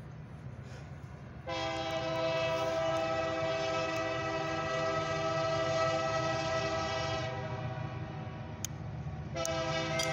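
Air horn of an approaching GP40-series diesel locomotive sounding for a grade crossing: one long blast of about six seconds, then a second long blast beginning near the end, over the low steady rumble of the locomotive diesels.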